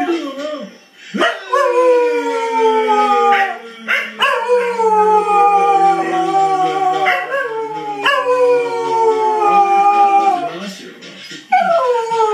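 Cocker spaniel howling: about four long howls, each starting high and sliding down in pitch, with short breaks between them.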